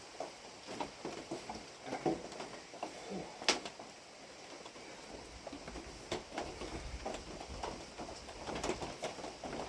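Irregular light taps and knocks, one sharper about three and a half seconds in, over a soft, steady patter of rain.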